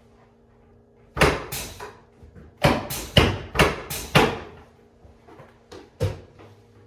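A series of sharp thuds and cracks from a chiropractic adjustment: two close together about a second in, four more about half a second apart, then two fainter ones near the end.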